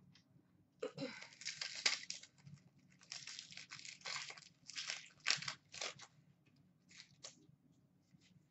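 Foil wrapper of a hockey card pack being torn open and crinkled, in a run of short rustling bursts that stop shortly before the end.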